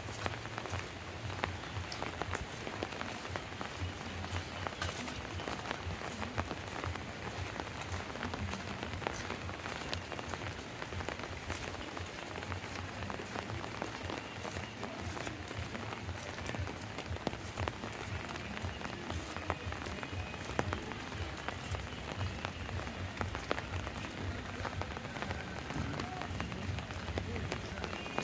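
Steady rain falling, with a dense patter of individual drops hitting surfaces.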